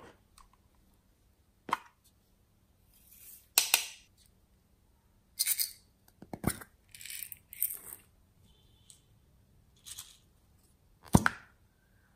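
Small plastic containers and slime add-ins handled over a bowl of slime: a string of separate clicks, knocks and short rustles, the loudest knocks about six and eleven seconds in.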